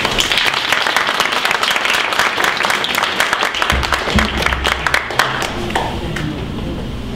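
Audience applauding, many hands clapping densely, then thinning out and dying away near the end. A couple of low thumps sound under the clapping about four seconds in.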